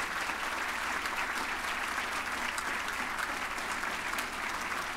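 Audience applauding steadily, a dense patter of many hands clapping, welcoming a speaker who has just been introduced.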